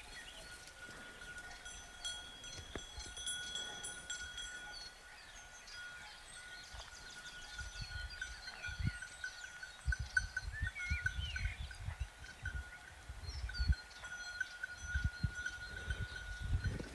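Cowbells on grazing livestock ringing steadily, with repeated small clanks in the second half. Birds chirp now and then, and low rumbling thumps come in from about halfway.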